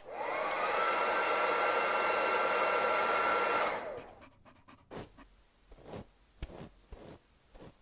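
Hair dryer switched on and blowing, its motor whine rising for about a second and then holding steady, before it cuts off a little under four seconds in. A few faint light taps and clicks follow.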